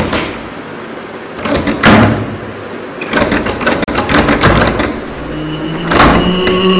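Loud knocking and banging over a rumbling, clattering bed, with several steady tones coming in about five seconds in.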